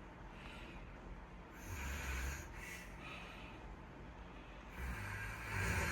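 A sleeping pet snoring: two slow snoring breaths, each a low rumble with a breathy hiss. The first comes about two seconds in and the second near the end.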